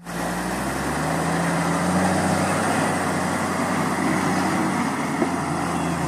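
Diesel dump truck, fully loaded with sand, with its engine running steadily as it drives across loose sand.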